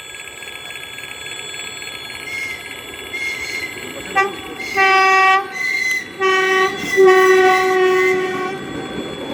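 Horn of an approaching Russian electric commuter train (elektrichka), sounded in several blasts from about four seconds in: a brief toot, two short blasts of about half a second, then a longer one of about a second and a half.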